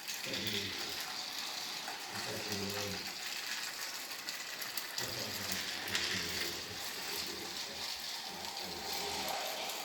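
Steady hiss with faint, muffled voices underneath.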